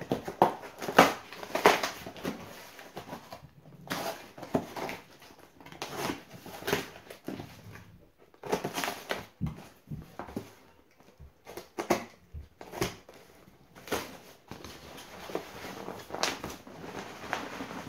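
Cardboard shipping box being opened by hand: a utility knife cutting along the packing tape and the tape and cardboard being pulled, scraping and crackling in irregular bursts every second or two.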